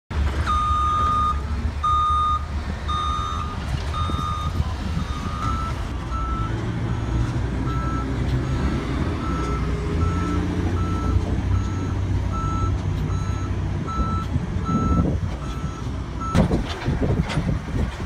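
Construction vehicles' backup alarms beeping about once a second over the low rumble of diesel engines; a second, slightly higher-pitched alarm takes over about five seconds in and stops about two seconds before the end. Near the end, a few sharp clanks.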